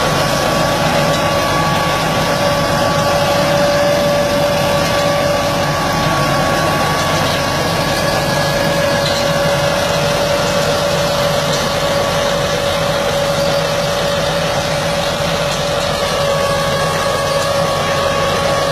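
An engine running steadily at constant speed, with a steady whine over its hum.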